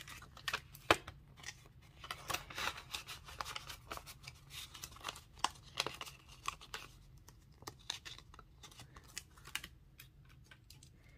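Banknotes and a paper cash envelope being handled: a run of papery rustles and crisp crinkles that dies away near the end.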